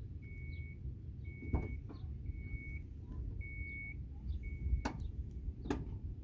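A car's electronic warning chime beeps five times, one steady tone about a second apart, then two sharp clicks follow near the end. Faint bird chirps sound in the background.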